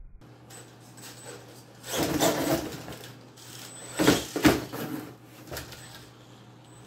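Venom Mini Giant electric RC monster truck driving over tile, with a faint steady high whine. There is a burst of clattering about two seconds in, and the loudest sharp knocks come around four seconds in as the truck strikes and jumps the cardboard box ramp and lands.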